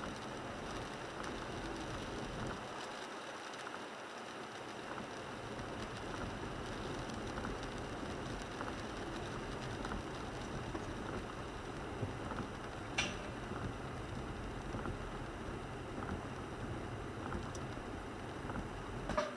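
Steady rain and wet-road noise inside a 1998 Toyota 4Runner driving in the rain: an even hiss of tyres on wet pavement and rain on the vehicle. Two sharp ticks stand out, one about two-thirds of the way through and one just before the end.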